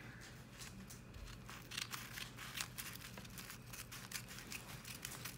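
Scissors cutting through stencil paper: a run of faint, irregular snips and paper crinkles.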